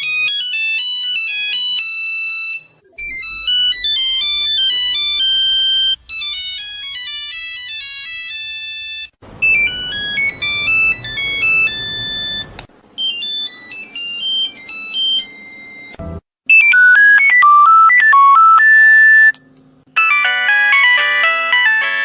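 A run of Nokia mobile-phone incoming-call ringtones, about seven different tunes each lasting a few seconds. The first ones are high-pitched electronic melodies; from about 16 s in the tunes are fuller, with a bass line under them.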